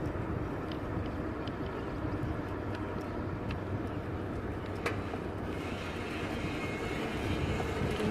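Huffy beach cruiser rolling along asphalt, heard from the handlebars as a steady rumbling noise with a few light clicks, the sharpest about five seconds in.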